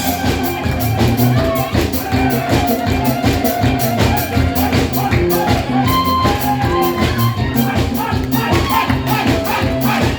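Live band playing Brazilian music, with a quick, even percussion beat over a steady bass line and melody.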